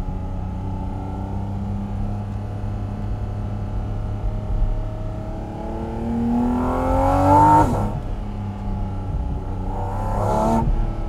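Porsche 718 Cayman GT4 RS's 4.0-litre flat-six running steadily for about six seconds, then revving hard with a steeply rising pitch. The revs drop sharply at a gearshift about eight seconds in, climb again, and drop at a second shift near the end.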